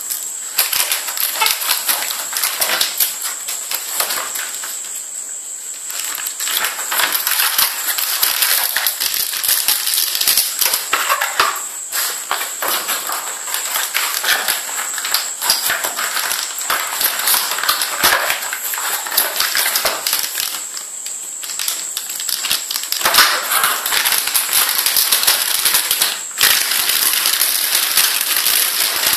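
Hands rustling and crinkling motherboard packaging: a paper DVD sleeve, a cardboard box insert and a plastic anti-static bag. It makes a dense, continuous crackle with brief lulls, and a steady high-pitched tone runs underneath.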